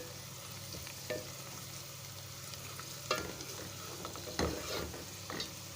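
Chopped onion and whole spices sizzling steadily in hot oil in a pan, the early frying of the masala for a biryani. A spoon stirring through them knocks against the pan a few times.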